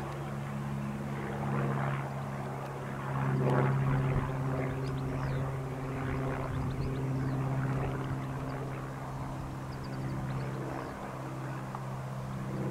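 A steady engine drone with a low, even hum and overtones, swelling slightly a few seconds in.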